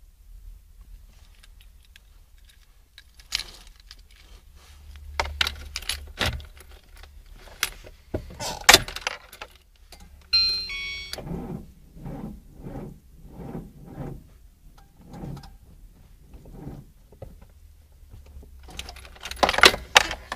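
Car keys jangling and clicking at the ignition, then a brief electric buzz about ten seconds in as the ignition comes on. After that comes a slow run of dull pulses, about one a second, and more clatter near the end.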